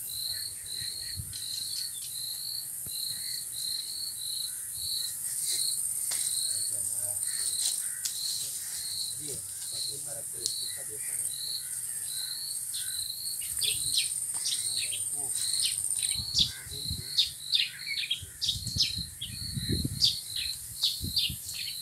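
Insects chirping in a steady rhythm of about two chirps a second over a continuous high insect buzz. From about two-thirds of the way through, sharp bird chirps join in and grow more frequent, with a few low thumps near the end.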